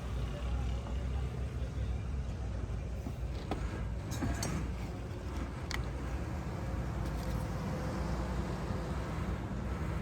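Steady low rumble of motor-vehicle engines or traffic, with a few light clicks and taps around the middle.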